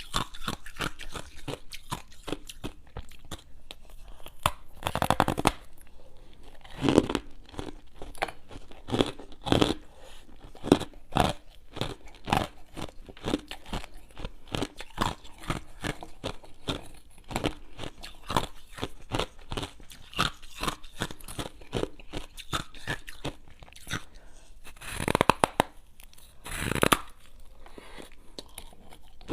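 Ice being bitten and chewed close to the microphone: dense, crisp crunching and crackling throughout, with a few louder, longer crunches as fresh bites are taken.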